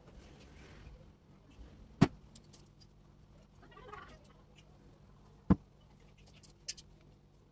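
Household handling noises during cleaning: two sharp knocks about three and a half seconds apart, a short rustle between them, and a couple of light clicks near the end, over a faint steady low hum.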